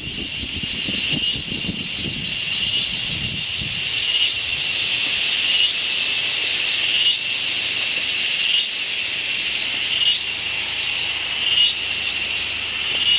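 Loud, steady, high-pitched insect drone in dense jungle, swelling in a regular pulse about every second and a half. A low rumble underneath fades out about four seconds in.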